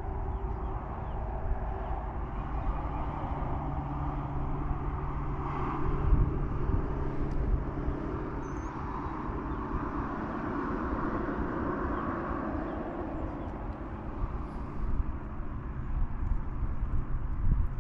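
Distant engine droning steadily over low outdoor rumble, with a low hum that holds for several seconds before fading back into the background.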